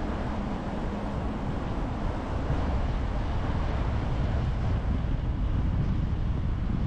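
A car driving: steady low road and engine rumble with wind noise, growing a little louder about two and a half seconds in.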